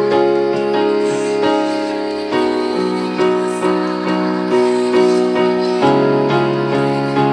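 Electronic keyboard playing slow worship music in a piano voice: sustained chords with notes struck about twice a second over a bass line.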